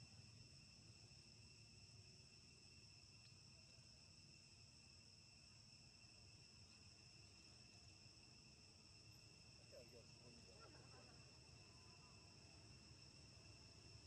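Faint, steady insect chorus: several high, unbroken tones held throughout over a low outdoor background hiss.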